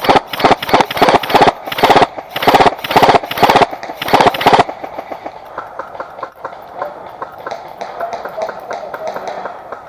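Airsoft gun firing on full auto in about five rapid bursts over the first four and a half seconds, loud and close. Quieter rapid clicking and rustling follow.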